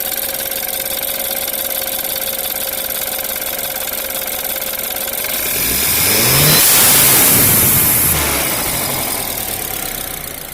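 BMW F30 328i's turbocharged four-cylinder engine idling, then revved once about six seconds in. A loud rushing hiss peaks with the rev and fades over a couple of seconds: the newly fitted aftermarket blow-off valve venting.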